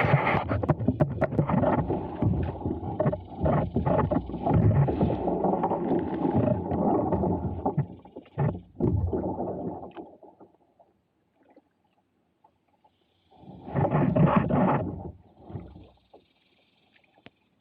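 Knocks, scrapes and water noise from a kayak and its paddle being worked through a shallow creek. It comes in two spells: a busy stretch of about ten seconds with many knocks, then, after a quiet gap, a short burst of about two seconds near the end.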